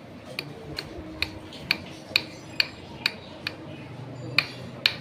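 Sharp, light clicks at an even pace, about two a second, with a short gap near the end, over a faint low hum.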